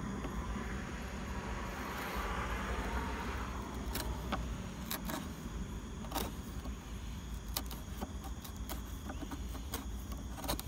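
Bench chisel paring the floor of a dovetail housing in mahogany by hand: a scraping hiss of the blade shaving the wood for the first few seconds, then a run of sharp clicks and ticks as the edge catches and scrapes on the wiry grain. A steady low hum runs underneath.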